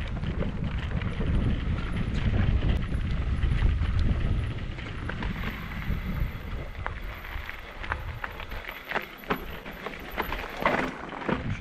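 Mountain bike rolling down a rocky dirt singletrack: the tyres crunch over stones and the bike rattles and clacks, under a low wind rumble on the microphone. The rumble fades about two-thirds of the way through, and sharp knocks from the bike hitting rocks come thick near the end.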